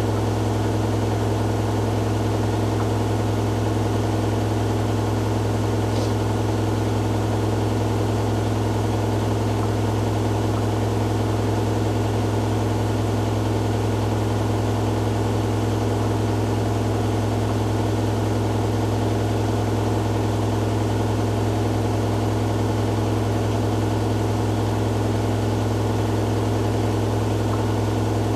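Hoover Dynamic Next DXA610IW3 washing machine on its spin cycle, the drum spinning at a steady high speed with an even, unchanging hum.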